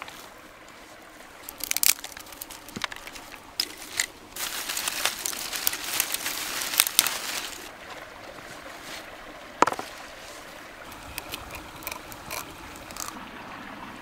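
Stream running steadily, with close crunching and crackling over it: a brief cluster about two seconds in, a longer stretch from about four to seven and a half seconds, a single sharp click near ten seconds and a few light ticks near the end.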